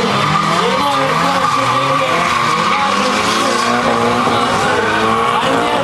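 Two drift cars sliding in tandem, their engines revving up and down over a steady high tyre squeal.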